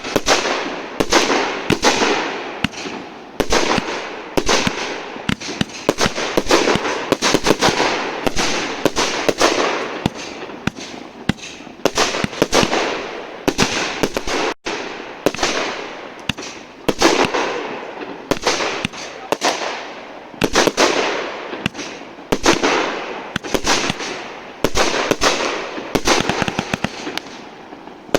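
Fireworks salute: a rapid, continuous string of bangs from shells bursting, with crackling between them and a momentary break about halfway.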